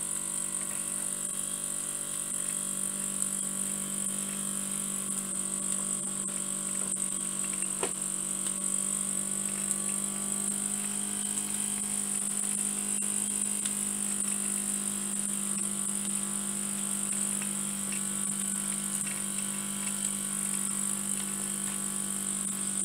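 Scratch-built horizontal oscillating-cylinder (wobbler) model steam engine running fast under steam pressure: a steady buzzing hum that strengthens a couple of seconds in as it picks up speed, with a constant high steam hiss.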